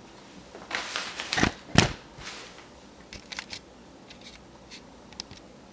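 Handling noise: rustling with two sharp knocks about a second and a half in, then a few scattered soft clicks.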